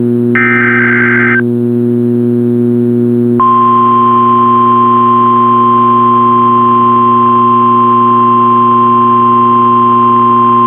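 A NOAA Weather Radio receiver plays a one-second burst of warbling SAME digital header data. About three seconds in, the steady 1050 Hz warning alarm tone starts and holds unbroken, sounding for the weekly test of the alarm system. A constant low hum runs underneath.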